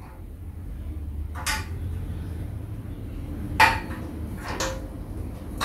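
A few sharp metallic clinks as the set screw at the wheel axle of a metal treadle sewing machine stand is worked by hand, the loudest about two-thirds of the way in, over a steady low hum.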